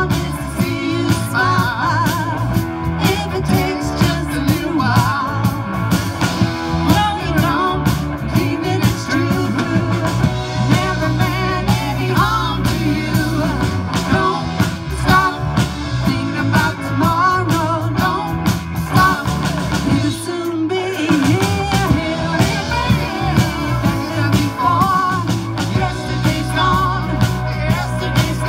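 Live rock band playing through a small PA: electric guitar over a drum kit, with a moving lead melody line. The low end drops out for about half a second roughly two-thirds of the way through, then the full band comes back in.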